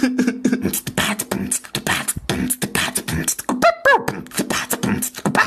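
Beatboxing: fast percussive mouth sounds over a steady low hum, with a few short pitched vocal glides about three and a half seconds in.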